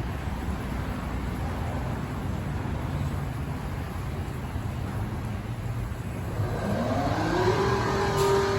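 PDQ LaserWash 4000 touchless car wash running with a low rumble; about six and a half seconds in, a motor whine rises in pitch and settles into a steady high whine. The title calls the wash's motor bad.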